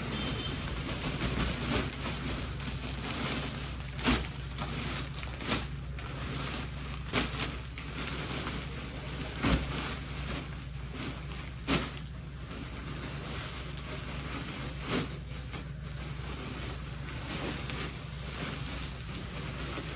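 Plastic packaging rustling and crinkling as plastic-bagged cricket batting pads are pulled out of a large plastic sack and set down, with about half a dozen sharp knocks scattered through. A steady low hum runs underneath.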